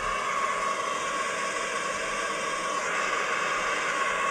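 Steady hiss of recorded box-fan noise from a white-noise sleep app, played through an iPhone 11's speaker.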